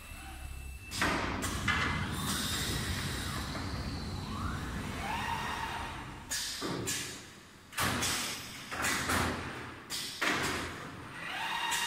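Automatic tricot cutting and welding machine working: irregular sharp knocks and thumps from its moving parts over a steady mechanical hum, with a short rising whine about four to five seconds in.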